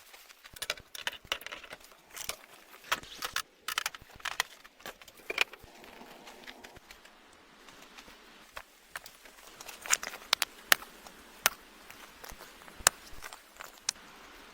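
Irregular sharp clicks and crackles, with a few louder snaps near the end, over a faint steady hiss.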